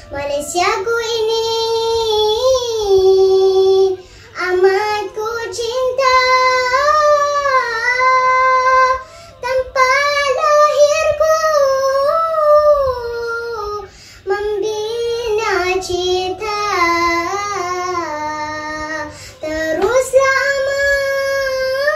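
A young girl singing a syair, the traditional Malay chanted poem, solo in long, drawn-out phrases with wavering, ornamented notes and short pauses for breath between lines.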